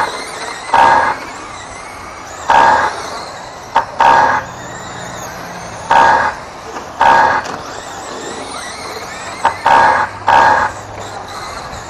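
RC race lap-timing system beeping as cars cross the timing line: about seven short electronic beeps at irregular intervals, over a steady outdoor hiss.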